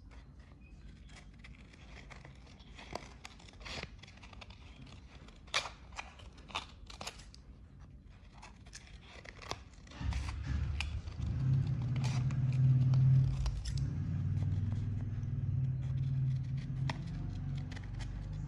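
Scissors snipping through coloured paper in scattered short cuts. About halfway in a low steady drone starts, louder than the snipping, and carries on to the end.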